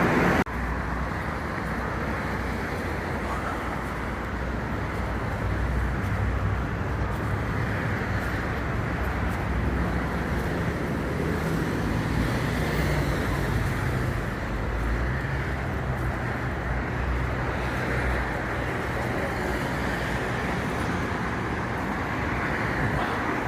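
Steady city traffic noise: a low rumble of passing vehicles over a continuous street hiss.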